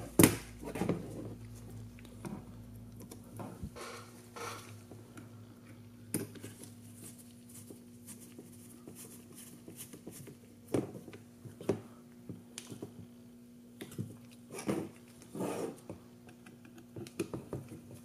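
Scattered light clicks and taps of small metal parts and a tool handled on a table, as M3 screws are fitted into knurled aluminum standoffs on a drone frame, over a faint steady hum.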